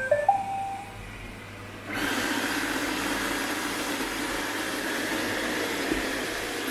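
iRobot Roomba robot vacuum playing a short tune of stepped beeps as it is started, then about two seconds in its vacuum motor and brushes start up and run steadily as it drives off across the hard floor.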